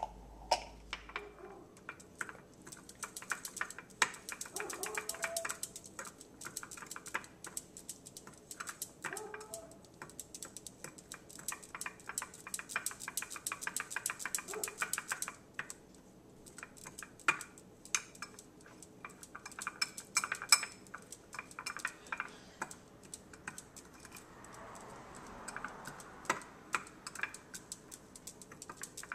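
A utensil stirring and mashing a garlic-and-spice rub in a small glass bowl, in runs of rapid clicking and scraping against the glass with short pauses.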